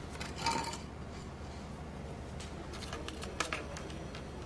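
Faint handling sounds of hands working clay rods and a board on a wooden workbench: a brief scrape about half a second in, then a few light clicks and taps around three seconds in, over a low steady hum.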